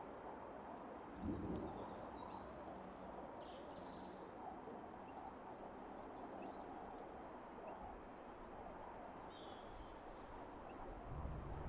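Faint, short bird chirps and a few sharp clicks over a steady outdoor background hiss, with a dull thump about a second in.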